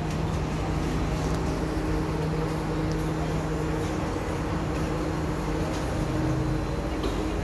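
SMRT metro train pulling into the platform behind platform screen doors: a steady low hum with a few held tones. Near the end the lowest tone drops in pitch as the train slows.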